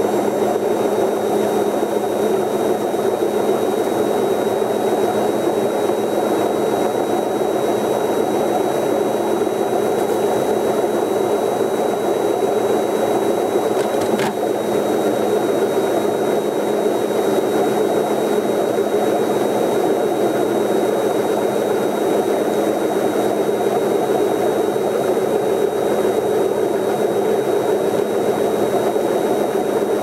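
Old top-loading washing machine running from a variac, its motor and spinning drum whirring steadily with a constant hum. There is a faint tick about halfway through.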